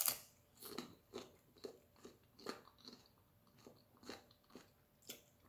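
A person chewing crunchy food, nacho chips, with a crisp crunch about twice a second.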